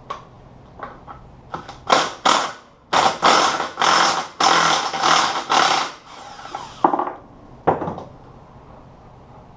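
Handheld power tool run in about five short bursts, as if driving bolts while the transmission is put back together. A few metal clicks come before it and two sharp knocks follow.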